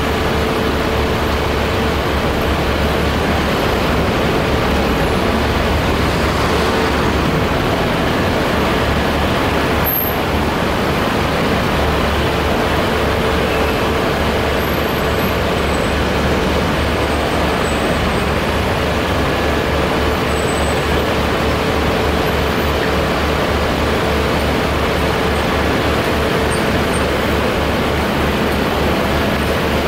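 Steady low rumble of heavy vehicle engines running, mixed with street traffic noise and a faint constant hum.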